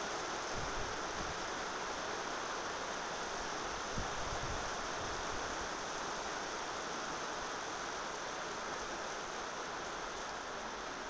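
Heavy wind-driven downpour: a steady, dense hiss of rain pouring down and lashing surfaces, with a brief low thump about four seconds in.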